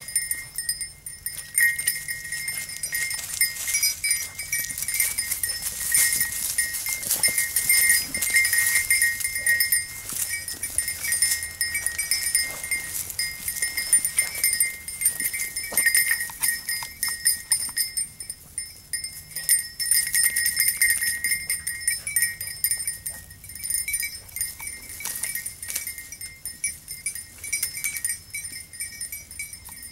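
A small bell on a hunting beagle's collar jingling continuously as the dog moves through brush, easing off somewhat in the last third.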